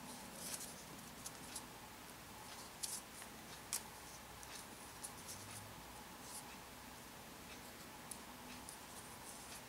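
Faint, scattered rustles and light ticks of rolled paper tubes rubbing and being pulled tight as they are woven by hand into a braided basket handle.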